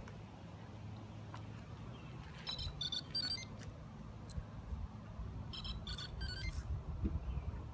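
3DR Solo quadcopters powering on: two short electronic start-up tunes about three seconds apart, each a quick run of beeps at several pitches.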